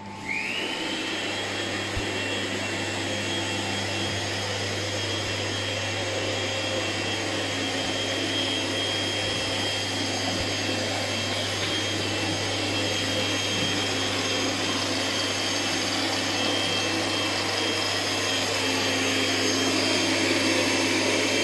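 An electric motor with a fan switches on: a whine rises in pitch over about half a second, then runs steadily with a rush of air over a low electrical hum. It grows a little louder toward the end.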